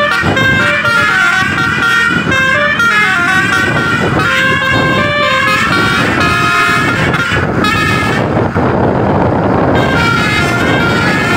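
Tour bus 'telolet basuri' musical air horn playing a quick tune of changing notes. About eight seconds in, the tune breaks off for a second or so, leaving a loud noisy rush, then starts again.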